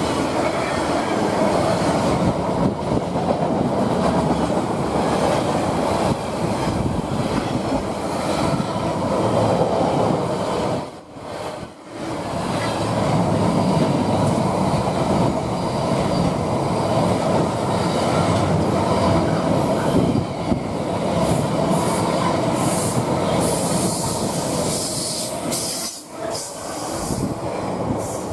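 Container freight train's wagons passing close by: a continuous loud rumble and clatter of wheels on the rails. The sound dips briefly about eleven and twenty-six seconds in, and thins out near the end as the last wagons go by.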